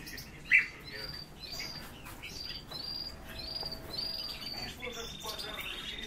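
Small cage birds calling: a sharp loud chirp about half a second in, then a series of short high whistles that rise and fall, about two a second, and from about five seconds in a steady, fast buzzy trill held at one pitch.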